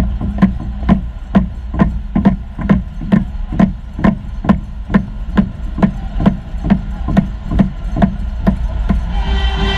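A steady drumbeat, about two beats a second, each a low thump with a sharp crack, over the low rumble of an arena crowd. Crowd noise swells near the end.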